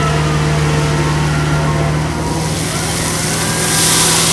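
Diesel engine of a crawler crane working as a dragline, running steadily under load with a low drone. In the second half a rushing hiss builds as the dragline bucket pours out its load of gravel.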